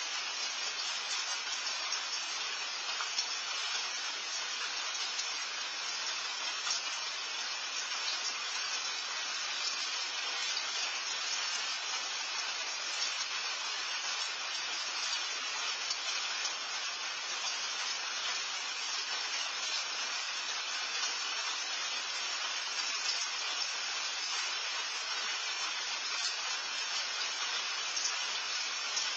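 Steady rain, a continuous hiss with a faint patter of drops, heard through a patio camera's microphone.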